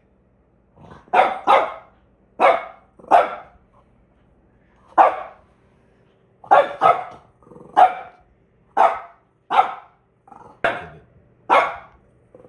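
A pet dog barking repeatedly: about a dozen short, sharp barks at an irregular pace, some in quick pairs, starting about a second in.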